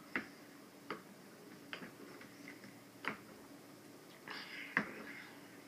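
Hands working wet slime in bowls of borax water, with five sharp, faint wet clicks spread out over a few seconds and a short rustle near the end.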